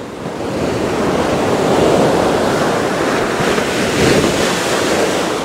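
Ocean surf rushing on a beach, with wind on the microphone; the noise swells about two seconds in and again near four seconds.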